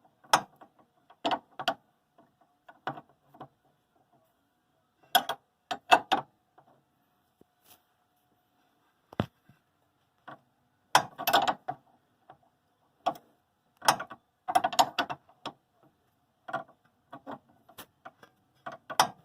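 Ratchet wrench clicking in short, irregular bursts while working the nut of a car's stabilizer (sway bar) link loose.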